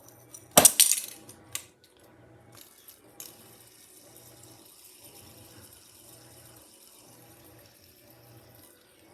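Washing machine making a weird bird-like chirping sound, repeating about once every 0.8 s over a low hum. About half a second in there is a loud metallic clatter, with a few lighter clicks after it, and a steady hiss sets in about three seconds in.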